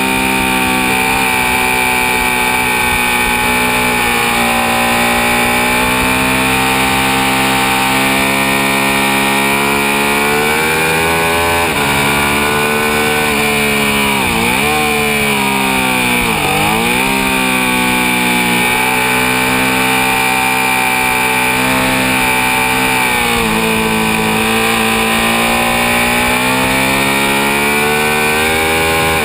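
Ducati 1199 Panigale's 1198 cc L-twin engine running hard at high revs, with wind rushing past the bike. About halfway through the pitch falls sharply and climbs back twice in quick succession; elsewhere it rises and eases gently.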